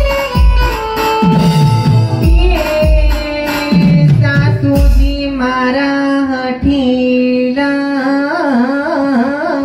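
Indian folk devotional music: held keyboard-like tones under a melody, with deep drum strokes that fall in pitch, roughly one every second and a half, in the first half. In the second half the drums stop and a singing voice or melodic line with a strong wavering vibrato comes in.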